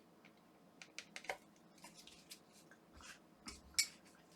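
Faint, scattered clicks and light scrapes of a tool working at the plastic parts inside a Philips Sonicare electric toothbrush handle while it is taken apart, with the sharpest click near the end.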